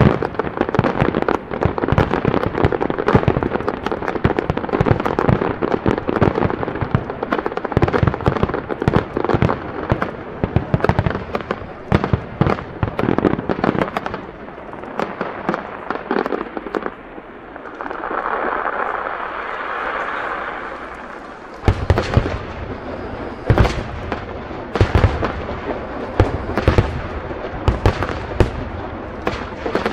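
Aerial fireworks shells bursting in a dense, rapid barrage of bangs. Past the middle the barrage thins to a few seconds of steady hiss, then heavy booms start again about two-thirds of the way through.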